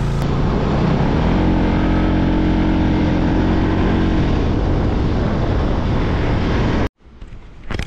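Vehicle engine running on the move, with heavy wind rumble on the microphone. The engine pitch rises about a second in, holds steady, then eases back about four seconds in. The sound cuts off abruptly near the end.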